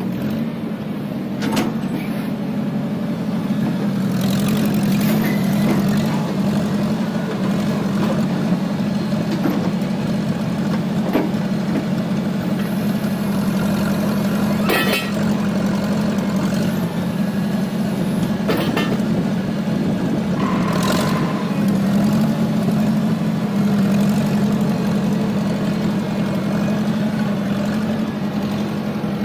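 Loader engine running steadily under work, with a few short knocks and clanks scattered through it.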